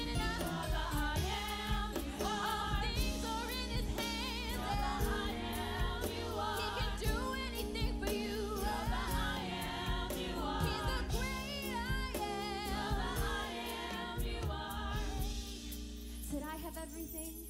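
Gospel music with singing voices over a steady accompaniment; it grows quieter and thinner near the end.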